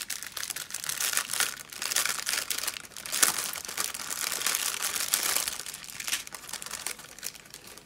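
Clear plastic packaging crinkling and rustling as hands open a bag of diamond painting drills and pull apart the small resealable bags inside. It is a dense, irregular run of crackles that stops at the end.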